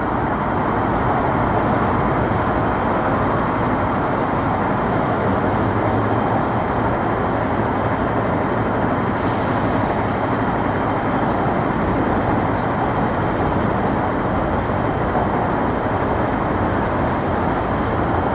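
Steady, unbroken noise of road traffic on busy city streets, with no single vehicle standing out.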